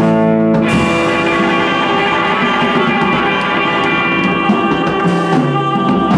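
Live band with saxophone, guitar and drums playing a long held chord, opened by a cymbal crash a little under a second in.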